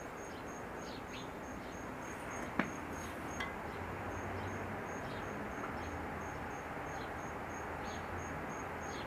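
Insect chirping, a high pulse repeating steadily about three times a second, over a background hiss. A sharp click about two and a half seconds in, and a fainter one just after.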